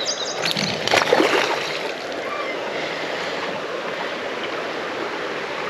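Steady rushing of shallow creek water, with a few short splashes in the first second and a half.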